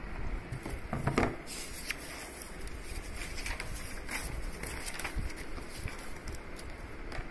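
Paper rustling as notebook pages are handled and turned, with a louder rustle about a second in and scattered lighter rustles and taps after it.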